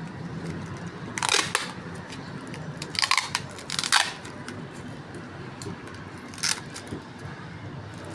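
Packing being handled: a few short rasping bursts, about a second in, twice around three to four seconds, and once more near six and a half seconds, over a steady low background.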